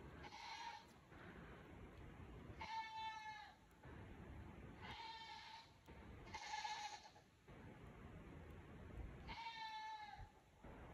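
A goat bleating again and again, about five calls a couple of seconds apart, each roughly a second long and held at one pitch.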